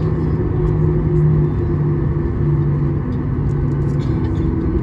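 Boeing 737-800 heard from inside the cabin while taxiing: a steady low rumble from its CFM56-7B engines at taxi power, with a low droning hum that shifts slightly in pitch.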